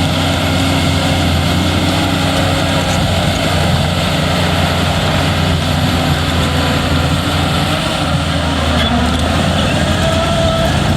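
Shantui bulldozer's diesel engine running steadily, with a faint rising whine near the end.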